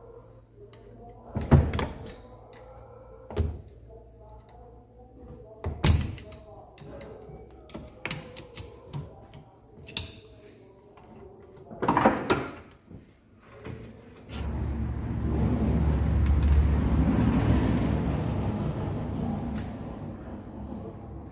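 Metal engine parts and hand tools being handled on a bare motorcycle engine crankcase: several sharp knocks and clinks, the loudest about a second and a half, six and twelve seconds in. From about fourteen seconds a low rumbling noise swells and fades over some six seconds.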